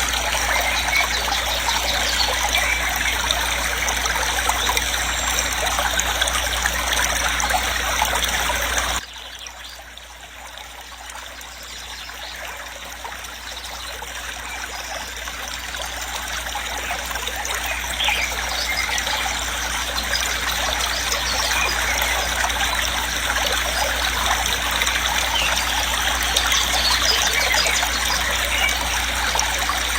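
Waterfall water rushing as a steady even noise. About nine seconds in it drops suddenly, then builds back to full level over the following several seconds.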